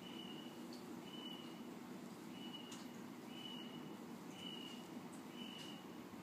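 A faint, short, high-pitched beep repeating about once a second, over a low steady background hum.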